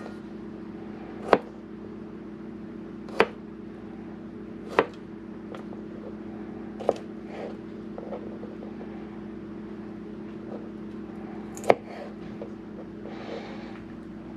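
Sharp knocks and clicks from kitchen work: about five loud ones at irregular intervals, with fainter ticks between, over a steady low hum.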